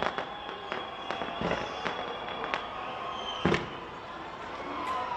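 Fireworks going off in irregular sharp bangs and pops, roughly every half second to a second, with the loudest bang about three and a half seconds in.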